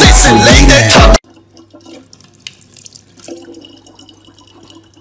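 Loud music with a heavy beat cuts off suddenly about a second in. After that, water from a kitchen tap runs faintly into a large plastic water bottle, with small drips and a low hum.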